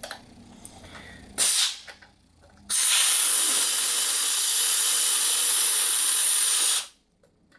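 Compressed air let out of the shop air line: a short blast, then a steady loud hiss of about four seconds that cuts off suddenly. The pressure is being bled down so the silent air compressor will kick on.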